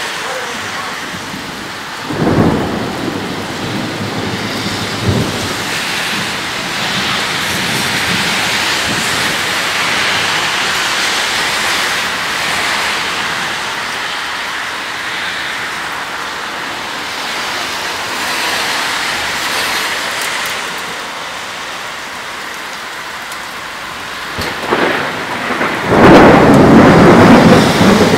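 Steady rain falling in a thunderstorm, with thunder. There is a sharp clap about two seconds in and a shorter one a few seconds later. Near the end a loud clap rolls on for a few seconds and is the loudest sound.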